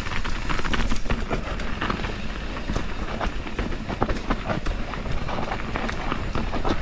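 Mountain bike descending a steep dirt trail: a continuous clatter of rattles and knocks from the bike and tyres over the rough ground.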